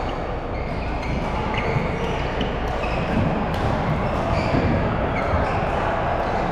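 A badminton rally in a large hall: sharp racket-on-shuttlecock hits and short high squeaks of shoes on the court floor, over a steady echoing hall din.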